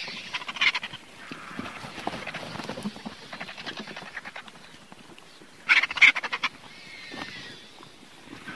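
Griffon vulture calling: harsh, rasping, rattling calls in several bursts, the loudest a short burst about six seconds in.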